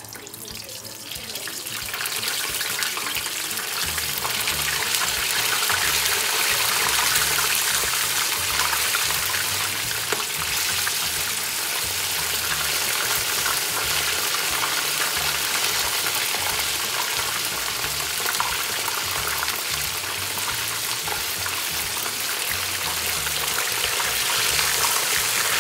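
Chicken pieces frying in a pan of hot oil: a loud, steady sizzle and bubbling that builds over the first two seconds as the pieces go into the oil, then holds.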